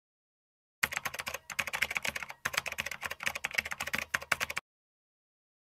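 Keyboard typing sound effect: a rapid run of keystroke clicks that starts about a second in, breaks off twice for a moment, and stops abruptly a little before the end.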